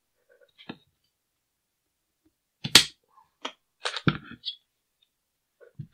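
Caracal CAR816 A2 rifle being opened: its takedown pins pushed out and the upper receiver pivoted away from the lower. A faint click about half a second in, one sharp snap near the middle, then a few lighter clicks.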